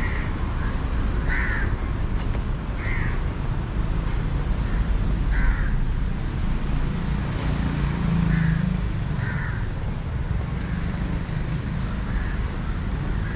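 A crow cawing, about six single caws spaced one to three seconds apart, over a steady low background rumble.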